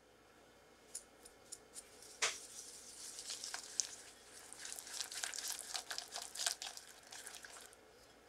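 Wire whisk beating egg yolks and granulated sugar in a glass bowl, its wires clicking and scraping against the glass in quick strokes. A few light taps come about a second in and a sharper knock just after two seconds, then steady fast whisking until it stops near the end.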